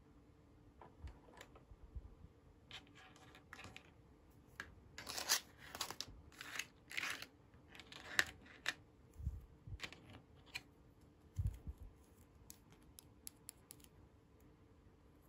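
Small plastic pieces of a Licca-chan toy kitchen set being handled and set down: light clicks and taps, a busier run of scratchy plastic rustling through the middle, and two soft thumps in the second half.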